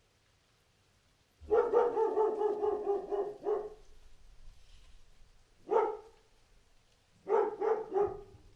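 A dog barking: a rapid run of barks lasting about two seconds, starting a little over a second in, then a single bark, then three quick barks near the end.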